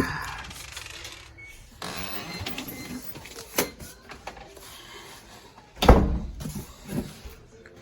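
Handling noises of a heavy boxed package being picked up and carried: rustling and scraping, a sharp knock, and a loud thump about six seconds in.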